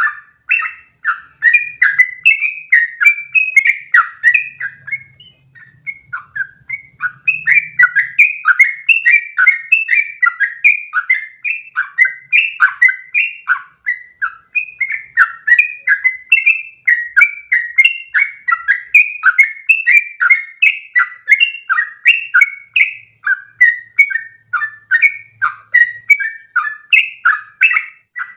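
Yellow-vented bulbul (trucukan) singing a long, rapid run of short, bubbly chirping notes with barely a break, the fast continuous song that bird keepers call ropel. There is a short pause about five seconds in.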